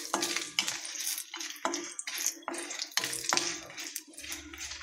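Whole spices and dried red chillies sizzling in hot oil in an iron kadai while a spatula stirs and scrapes the pan in quick, irregular strokes.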